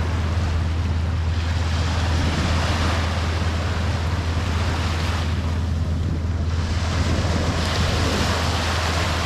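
Surf breaking on a sandy beach, the rush of the waves swelling and easing about three times, over a steady low rumble of wind on the microphone.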